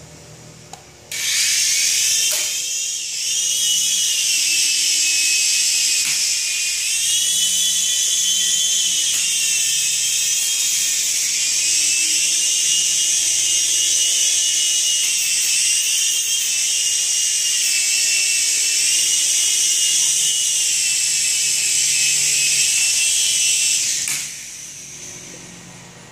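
Small indoor RC helicopter's electric motors and rotor whining at a high pitch in flight. The whine starts suddenly about a second in, rises and falls in pitch as it flies, and cuts off a couple of seconds before the end.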